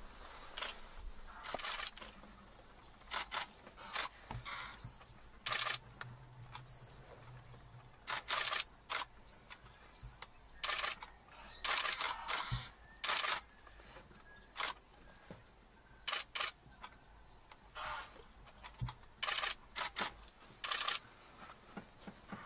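Camera shutters clicking at irregular intervals throughout, some as single frames and some in quick bursts of several.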